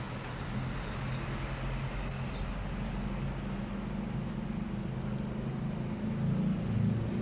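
A vehicle engine running steadily with a low, even hum, getting a little louder near the end.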